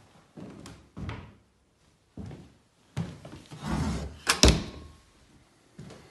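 An under-stairs cupboard door is pushed shut, closing with a loud thunk and a latch click in quick succession about four seconds in. Lighter knocks and rustles of handling come before it.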